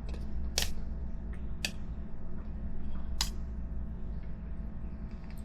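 Three sharp clicks as pieces of 3D-printed plastic support material snap off a printed wheel rim, over a steady low hum.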